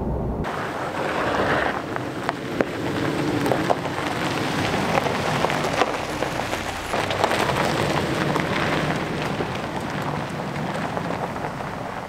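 A few moments of low in-cab road rumble, then the Ford Ranger's tyres crunching over gravel as the truck drives off, with many small stones popping and clicking. The crunching fades a little near the end.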